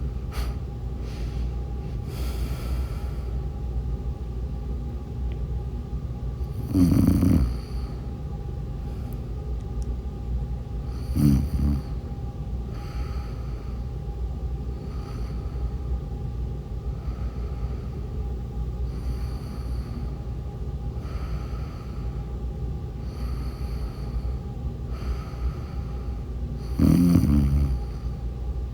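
Snoring during sleep: soft, regular breaths about every two seconds over a steady low hum, with three much louder snores, a quarter of the way in, shortly after, and near the end.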